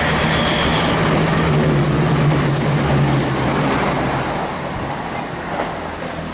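Class 168 diesel multiple unit passing through the station: a steady diesel engine drone with wheel and rail noise, easing off after about four seconds.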